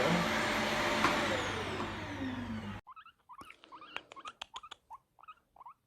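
Vytronix CYL01 800 W bagless cylinder vacuum cleaner spinning down, its pitch falling as the motor slows after being switched off. It cuts off abruptly about three seconds in, followed by a string of short high squeaks and a few light clicks.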